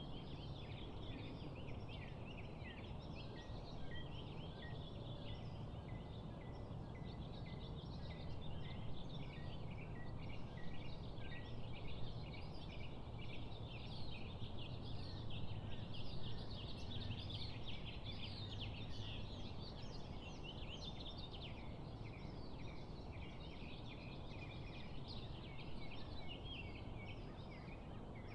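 Dawn chorus: many birds chirping and twittering at once, busiest in the middle, over a low steady rumble.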